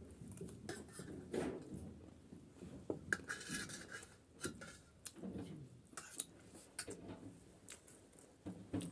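Irregular clinks and taps of a spoon against plates and bowls while panipuri is eaten, with scattered crunching and mouth sounds.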